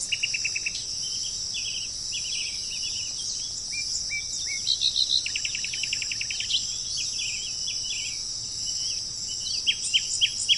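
Small songbirds chirping, with two quick trills of rapidly repeated notes (one at the start, a longer one about five seconds in) and a cluster of short sharp chirps near the end, over a steady high-pitched drone of insects.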